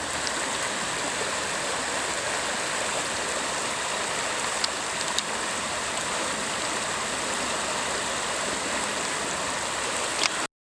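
Steady rushing of a flowing stream, with a few faint ticks; it cuts off abruptly near the end.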